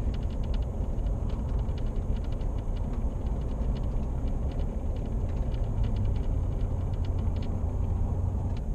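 Cabin noise of a Toyota Tundra pickup on the move: a steady low engine and road rumble, with many faint, irregular light ticks or rattles over it.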